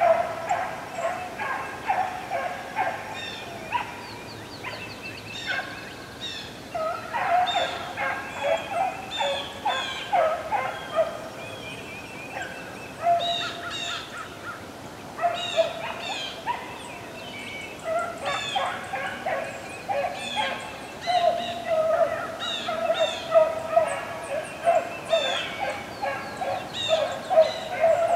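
Rabbit hounds baying as they run a rabbit track: a steady string of short, pitched bawls that thins out for a few seconds in the middle and picks up again toward the end.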